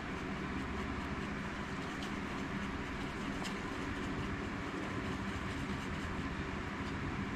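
Steady rumbling machine noise from the shop, with a few faint clicks of a wooden stir stick mixing epoxy on a wooden paddle.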